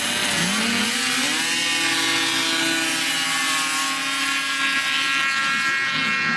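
Snowmobile two-stroke engines, among them a 1973 Sno-Jet Thunderjet 650, revving hard off the start line of a drag race. The pitch climbs sharply in the first second or so and then holds steady near full throttle as the sleds run past.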